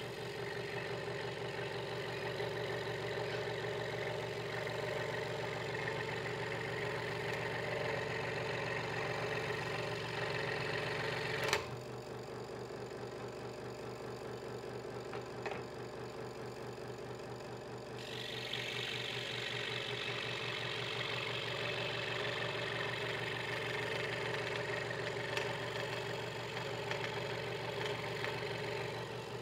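Hegner Multicut 2S scroll saw running, its blade sawing through a small wooden blank with a steady rattling buzz. A little before halfway there is a sharp click, and the cutting sound drops away for several seconds while the motor keeps running. Then the blade bites into the wood again.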